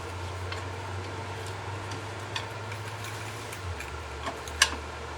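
Light scattered clicks and ticks of metal hand tools being handled at a car's front brake caliper, with one sharper click about four and a half seconds in, over a steady low hum that drops slightly in pitch nearly four seconds in.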